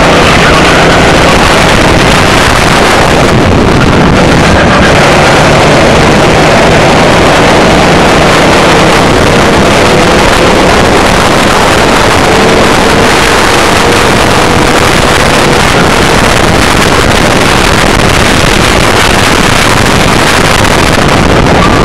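Racing go-kart engine running hard, heard from the driver's seat under heavy wind buffeting on the onboard microphone. Partway through, its pitch climbs slowly as the kart speeds up.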